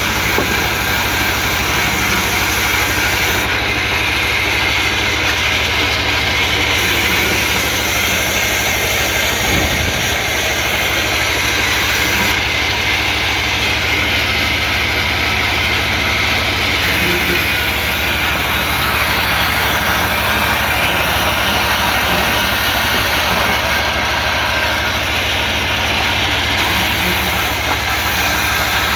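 Sawmill engine running steadily, with an even hum and no change in load.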